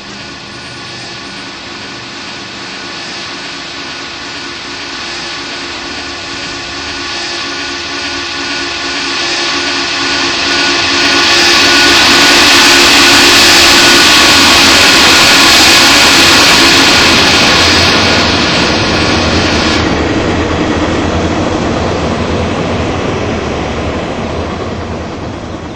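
Southern Pacific Daylight train's whistle blowing one long, steady chord of several notes that swells louder as the train approaches and cuts off about twenty seconds in, leaving the rumble of the passing train.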